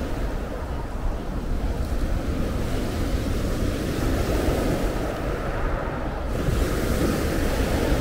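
Sea waves breaking and washing up a pebble shore in a continuous surf, with wind rumbling on the microphone. The surf swells up about halfway through and again near the end.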